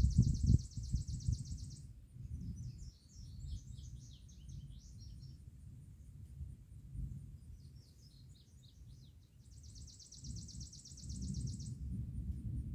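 Distant thunder rumbling low, heaviest at the start and building again near the end. Over it a songbird sings a fast, even trill of about two seconds, twittering phrases, then the trill again.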